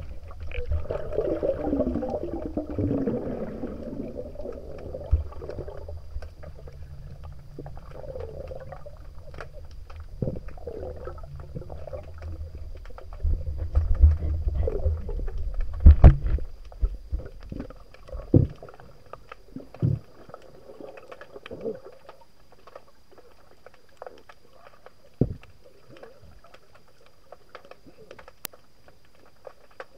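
Underwater sound picked up by a camera in its housing: low rumbling and gurgling water noise from a fast current, loudest in the first few seconds and again around the middle, with scattered clicks and knocks. It fades to a faint hiss in the last third.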